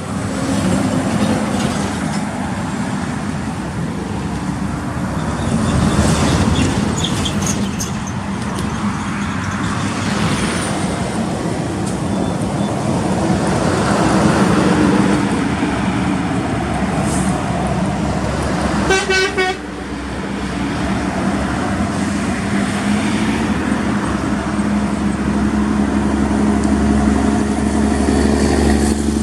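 Heavy diesel trucks running under load as they pass on a highway, the engine sound swelling and fading several times and building to a steady, strong drone near the end. A truck horn sounds once for about a second, roughly two-thirds of the way through.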